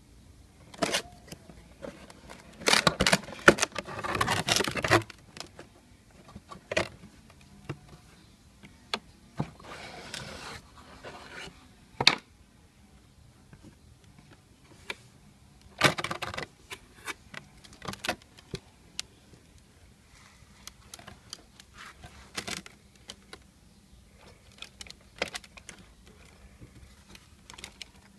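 Cardboard box and a plastic toy tractor being handled during unboxing: scattered clicks, knocks and rustles, with a longer burst of rustling about three to five seconds in.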